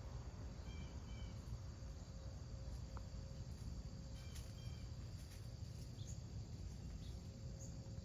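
Outdoor insect chorus, a steady high chirping, with a few short paired chirps over a low steady rumble.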